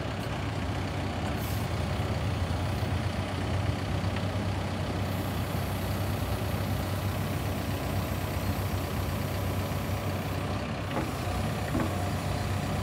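Cat diesel engine of a tractor loader backhoe running steadily, a low, even drone with no revving.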